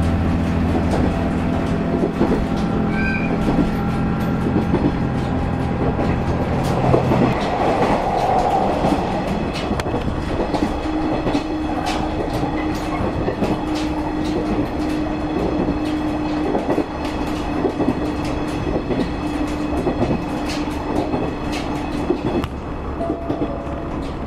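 Diesel railcar on the move, with wheels clicking over rail joints throughout. A steady low engine drone fades out about seven seconds in, and the ride carries on with a steady hum.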